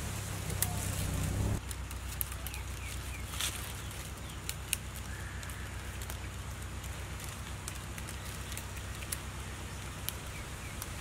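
Thin split vine strips crackling and clicking against the basket's spokes as they are woven in and out by hand, with scattered sharp ticks over a steady low rumble.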